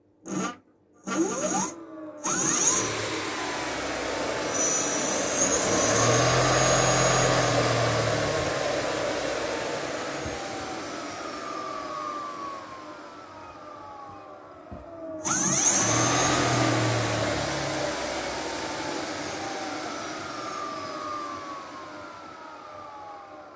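A 3200 W electric scooter hub motor run by a 50 A controller whirs up in a few short throttle blips, then speeds up to a steady whine. It slowly winds down as it coasts, is suddenly throttled up again about two-thirds of the way through, and then winds down once more.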